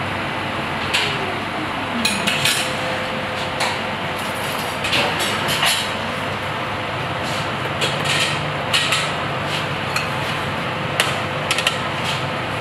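Scattered light clinks and taps of spoons against steel saucepans and a porcelain plate during plating, over a steady background rush of a commercial kitchen.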